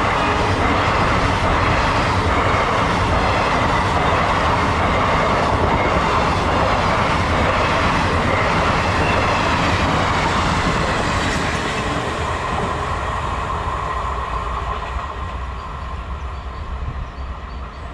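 Express passenger train rolling past at speed: a steady, loud rumble of wheels on rails that fades over the last several seconds as the train draws away.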